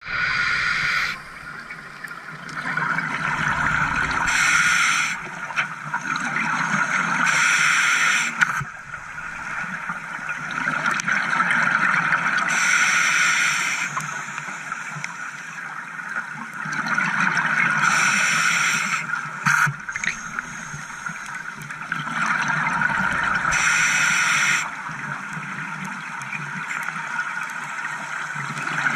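Scuba diver breathing through a regulator underwater: five bursts of exhaled bubbles a few seconds apart, with a quieter watery hiss between them.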